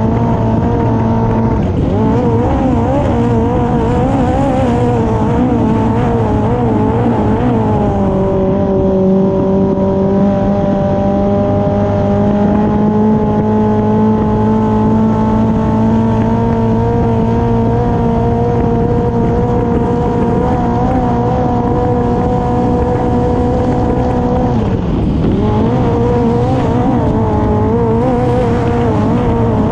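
Honda F20C 2.0-litre four-cylinder engine in a classic hydroplane running hard at racing speed, over the hiss of spray and wind. Its pitch wavers for the first several seconds, then holds steady. About 25 seconds in it drops sharply and climbs back up.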